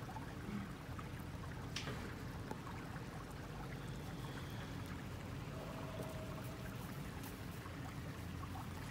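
Small creek running with a steady, quiet trickle.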